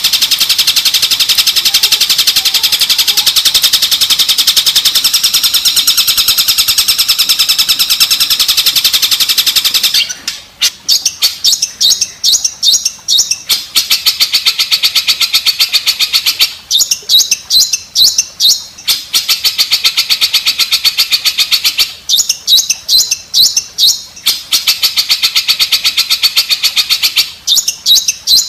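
A master training track of recorded high-pitched bird and insect calls. For about ten seconds there is a continuous dense trill. After that, bursts of rapid chattering pulses come every few seconds with short breaks between them.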